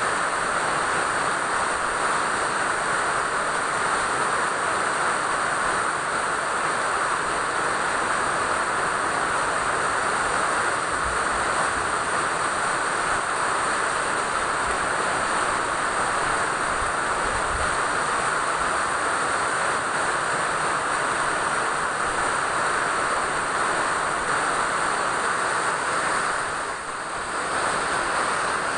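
Steady rain falling, an even hiss that dips briefly near the end.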